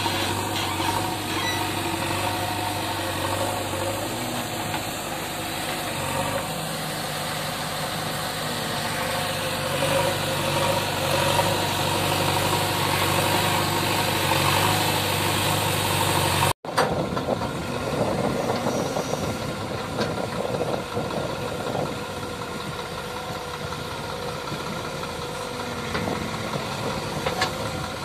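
Diesel engines running: a JCB backhoe loader at work loading soil into a tractor trolley, with a tractor idling close by. A little past halfway the sound drops out for an instant and comes back rougher and less steady.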